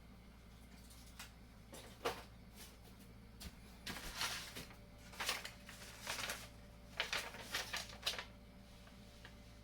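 Food packages and cans being handled and set down: irregular rustles and light knocks, with a few sharp clicks, over a low steady hum.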